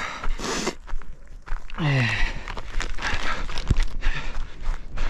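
A runner breathing hard, with running footsteps and clothing rustle, and a short groan about two seconds in that falls in pitch.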